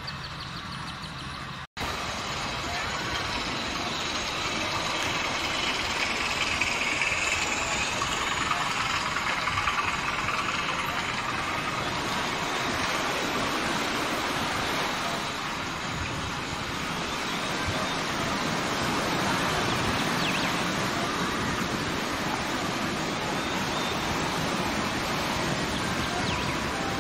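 Model train running along the layout track: a steady rumbling clatter of wheels and motor, briefly cutting out about two seconds in.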